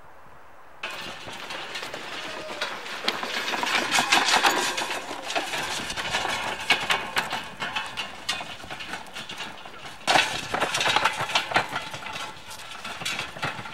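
Wooden handcart with large spoked wheels rattling and clattering as it is pushed over a rough dirt trail, starting abruptly about a second in, with a burst of louder clatter about ten seconds in.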